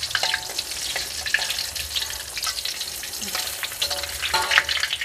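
Tempe and tofu deep-frying in hot oil in a wok: a steady sizzle full of crackling pops. Metal skimmer and spatula scrape and clink against the wok as the finished pieces are lifted out.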